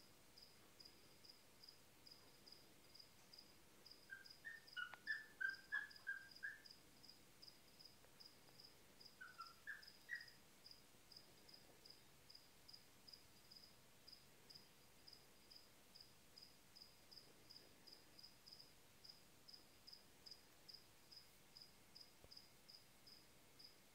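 A cricket chirping faintly and steadily, about three short chirps a second. Twice, around five and ten seconds in, a short run of louder, lower twittering chirps cuts in.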